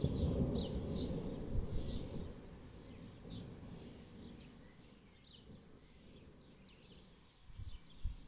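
Distant thunder rumbling deep and low, then dying away over the first few seconds. A small bird keeps chirping in short high notes, about two a second.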